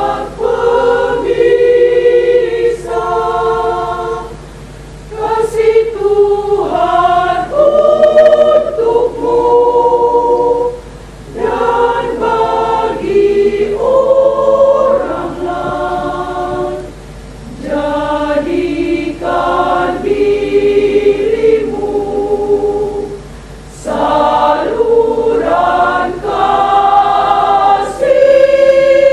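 Women's choir singing a hymn in several parts unaccompanied, in phrases of held chords with brief breaths between them.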